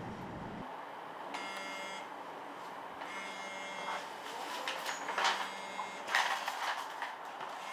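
Two short mechanical buzzes in the first half, then paper rustling and light handling noises as glossy brochure pages are leafed through on a desk, over quiet room tone.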